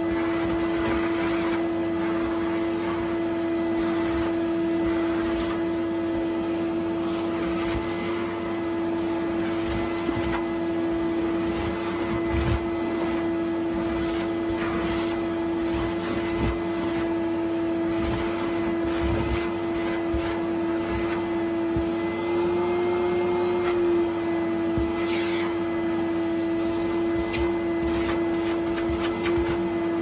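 Henry canister vacuum cleaner running with a steady motor whine while its floor tool is pushed back and forth over a thick rug, with irregular brushing and bumping from the head. The whine rises slightly in pitch for a moment about three quarters of the way through.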